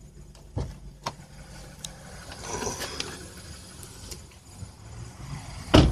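Handling noise from a phone being moved about: a few knocks and rustling scrapes, then a loud thump near the end, over a low steady rumble.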